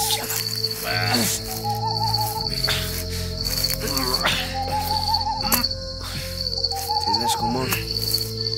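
Crickets chirping in a steady pulsing rhythm, with a warbling trill that recurs every couple of seconds and steady low tones beneath.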